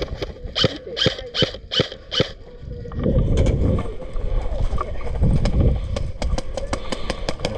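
Airsoft guns firing: a string of single sharp shots about a third of a second apart in the first two seconds. Then a heavy low rumble of wind and movement on the head-camera microphone, with a quicker run of shots near the end.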